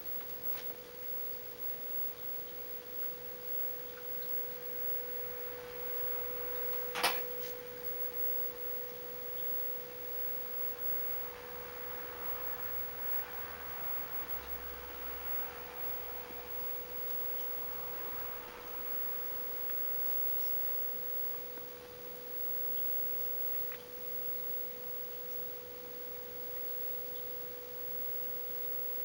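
A steady, unchanging mid-pitched hum, with one sharp click about seven seconds in.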